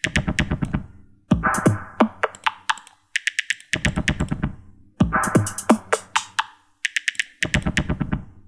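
An electronic drum pattern looping from a music sequencer. A low hit comes about every 1.25 s, with quick runs of sharp, clicky percussion ticks between the hits.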